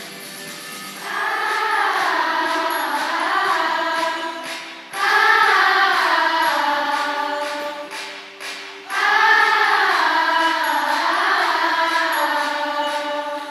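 Singing over a steady instrumental accompaniment, in three long sung phrases that begin about one, five and nine seconds in.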